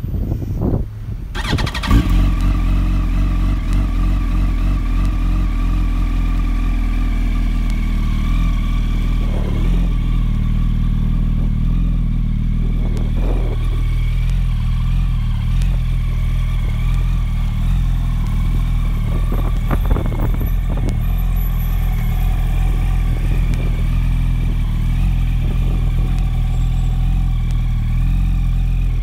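2007 Yamaha R1's inline-four engine, fitted with a Two Brothers exhaust, cranking on the starter and catching about two seconds in, then idling steadily.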